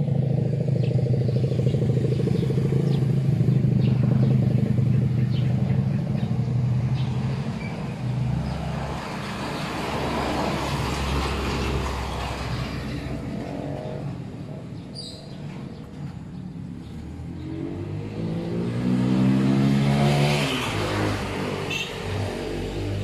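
A vehicle engine running with a steady hum, loud for the first several seconds and then fading. Later an engine speeds up with a rising pitch and then dies away near the end.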